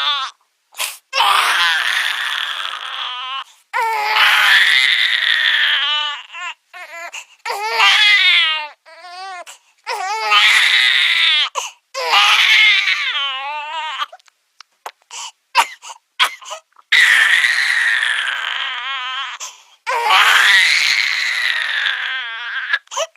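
Baby crying sound effect: a run of loud, drawn-out infant wails, each two to three seconds long with short breaths between, several breaking into a fast shaky sobbing quaver.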